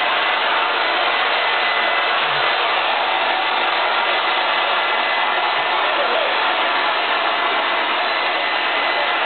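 Handheld hair dryer running steadily, a continuous rush of blown air with a faint high whine.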